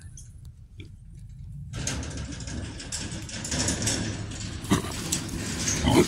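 Trapped feral hogs moving about inside a corral trap, with grunting and scuffling. It is muffled for the first second or so, and two sharp knocks come near the end.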